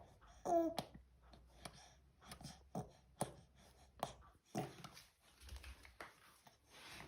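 A six-month-old baby making a string of short grunts, huffs and squeaky noises, one every half second or so, with a brief pitched squeal about half a second in.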